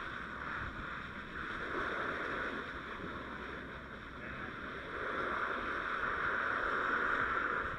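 Steady engine and road noise of a fire truck under way, as heard from inside the cab, growing somewhat louder about five seconds in.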